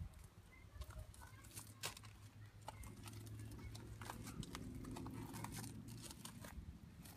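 Footsteps crunching on gravel, an irregular run of sharp steps. A low steady hum comes in about three seconds in and fades shortly before the end.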